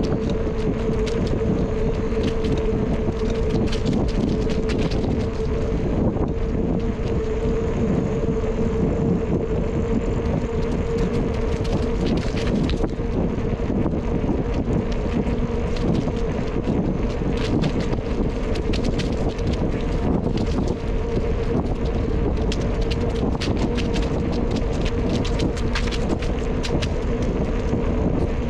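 Wind buffeting the microphone on a moving bicycle, over the rumble of the tyres on the trail. A steady hum runs underneath, with scattered light clicks and rattles.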